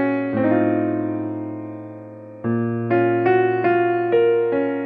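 Background piano music: a slow melody of single notes over chords. Early on one chord is left to ring and fade for about two seconds, then the notes pick up again.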